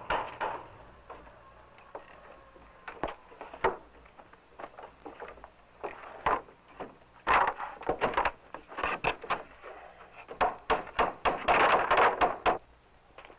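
Wooden boards and a wooden window shutter knocking and clattering as they are handled and gathered up. The knocks come in a run at an irregular pace, busiest in the second half.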